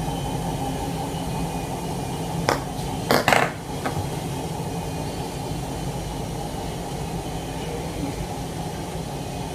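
Plastic Play-Doh toy pieces knocking against each other or a hard surface: a single clack about two and a half seconds in, then a quick cluster of clacks just after three seconds, over a steady low background hum.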